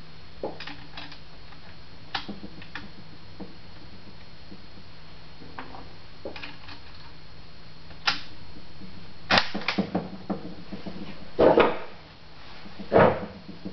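Handling of a La Coruña FR8 bolt-action rifle at a wooden bench: scattered small clicks and knocks, then a run of louder metallic clacks and clatter over the last five seconds. No shot is fired.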